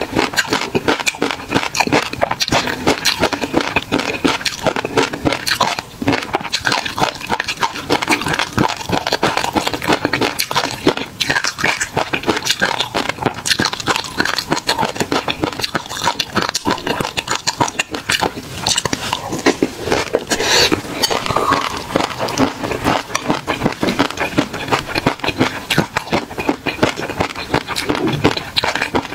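Close-miked chewing of a mouthful of tobiko fish roe and peanuts in chili sauce: a dense, rapid crackle of tiny pops and crunches with wet mouth smacking.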